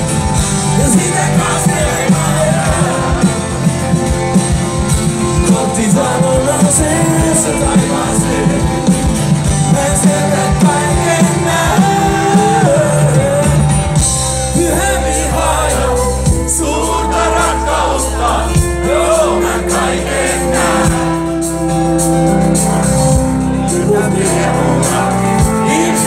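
Live rock band with a male singer, acoustic and electric guitars, bass and drums, heard through the PA from within the audience. The bass gets fuller about halfway through.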